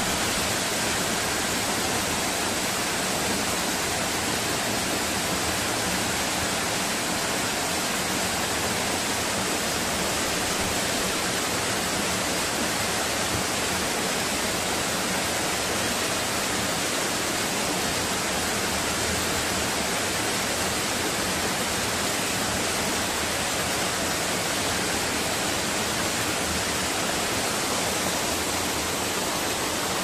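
Small waterfall: water pouring over a stone ledge in a steady, unbroken rush of white water.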